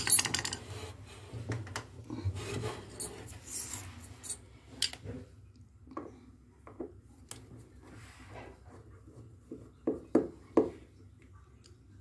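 A screwdriver backing out a small screw on a washing machine's wire terminal, with rubbing and scraping against metal and plastic and light metallic clicks of the screw and ring lug; a few sharper clicks come about ten seconds in.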